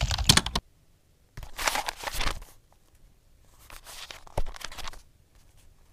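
Edited-in outro sound effects. A run of rapid keyboard-like clicks stops about half a second in. Then come three separate bursts of crackly, crinkling noise, each about a second long, with near quiet between them.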